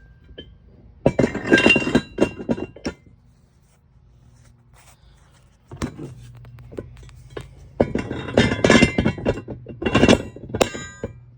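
Steel ratchet bars of a pair of Daytona 3-ton ratcheting jack stands being fitted into their bases, with metal-on-metal clanks and clinks and a brief ringing. There are two clusters, one starting about a second in and another near the end.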